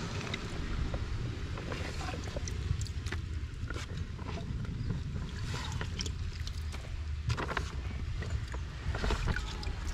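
Steady low wind rumble on the microphone, with scattered light clicks and taps.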